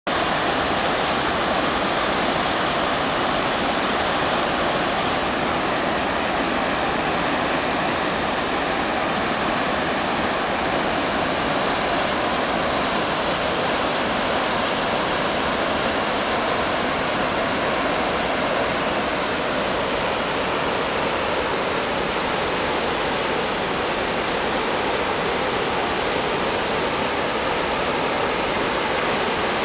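Great Falls waterfall pouring in flood after a hurricane: a steady, unbroken rush of heavy falling and churning water.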